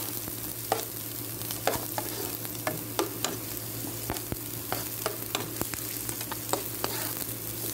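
Chopped onions sizzling in hot oil in a nonstick pan while they are stirred, with scattered sharp clicks from the utensil against the pan. The onions are being sautéed until they turn brown.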